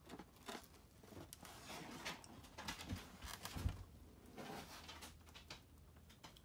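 Faint bite into and chewing of a breaded pork tenderloin sandwich: soft crunches and small mouth noises, with a low thump a little after three and a half seconds.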